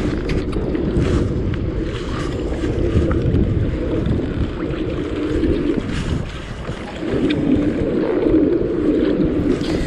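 Wind buffeting the microphone and water washing around a moving pedal kayak, with a steady mid-pitched whir that breaks off briefly around six to seven seconds in.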